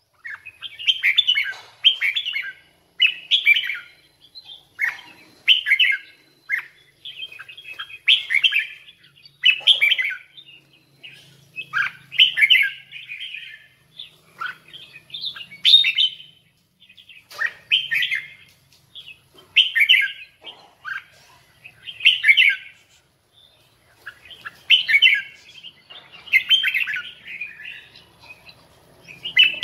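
Caged red-whiskered bulbul singing its competition (fighting) song, in short phrases of high notes that come one every second or two.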